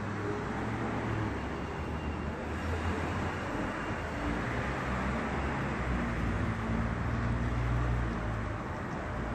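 City street traffic noise: a steady low rumble of vehicle engines under a general hiss, growing a little louder about six to eight seconds in.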